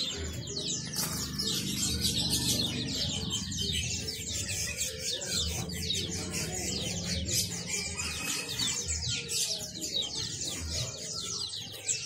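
Many caged small songbirds chirping at once: a dense, continuous chorus of quick, high, downward-sliding chirps overlapping one another, with no pause.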